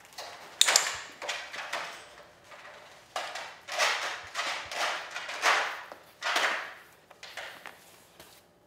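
Thin cardboard tray scraping and rustling in a run of short scuffs as a puppy noses and pushes at it.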